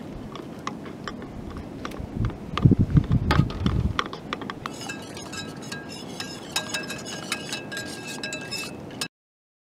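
A spoon stirring a yeast mixture in a stainless steel mug, clinking against the metal, with a low rumble that rises and fades a few seconds in. In the second half the clinking becomes rapid and steady with a light ringing tone, and the sound cuts off abruptly near the end.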